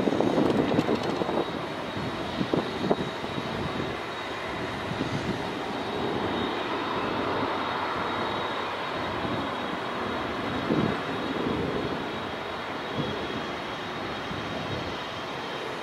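Boeing 787-9 Dreamliner's jet engines on final approach to land, a steady jet noise with a thin high whine over it, and a few low thumps in the first few seconds.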